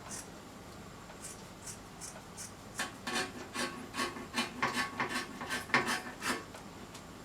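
Scissors cutting through folded stretchy fabric: a few faint snips, then a quick run of louder snips, about four a second, through the second half.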